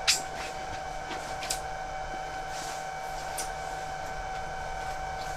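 Steady mechanical hum with a faint fixed whine, as from a small motor or fan running. A few sharp clicks and rustles of handling sit over it, the loudest right at the start and another about a second and a half in.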